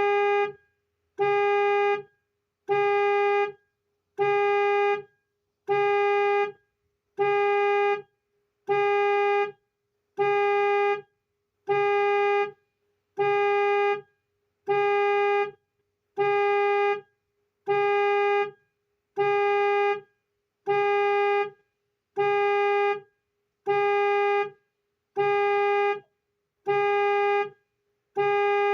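A Honda Fit's horn honking over and over in the steady rhythm of a car alarm, about one evenly spaced honk a second: the car's anti-theft alarm has been triggered.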